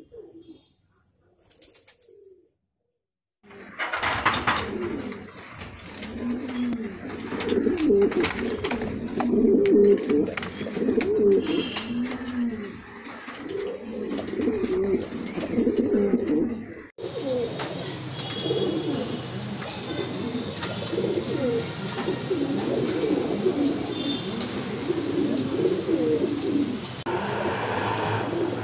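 Pigeons cooing: many repeated rising-and-falling coos, one after another. The cooing cuts off abruptly about two thirds of the way through and resumes at once.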